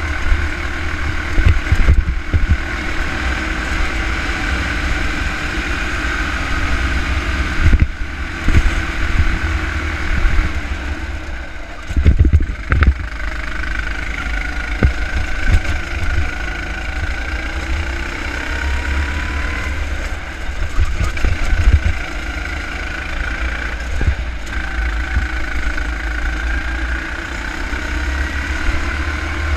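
Go-kart engine heard from onboard, running continuously under load through a lap, its note rising and falling as the kart accelerates and slows for corners. Heavy low rumble from wind on the microphone, with a few short knocks.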